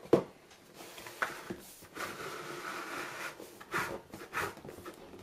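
Cardboard packaging being handled: a sharp knock at the start, a few lighter taps, and about a second of cardboard sliding and rubbing against cardboard in the middle.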